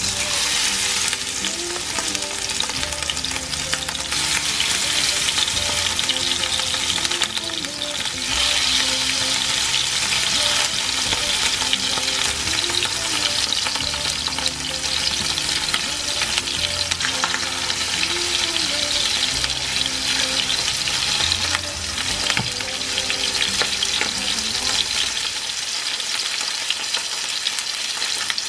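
Salmon fillets frying skin-side down in hot oil in a non-stick frying pan: a steady sizzle that starts suddenly as the first fillet goes into the oil.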